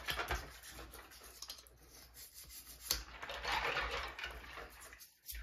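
Toothbrush scrubbing plastic keyboard keycaps in a sink of water, with a few small clicks of plastic.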